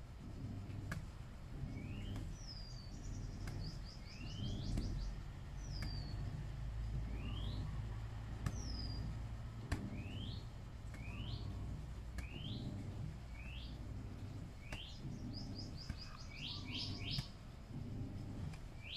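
Birds calling: repeated short rising whistled notes, a few falling notes, and quick runs of high trilled notes near the end. A couple of sharp clicks stand out, the loudest about ten seconds in.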